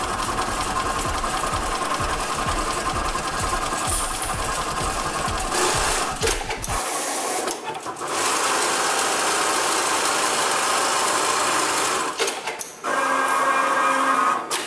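Automated industrial sewing machine running at speed as it stitches. It breaks off briefly about halfway and again near the end, then stops abruptly.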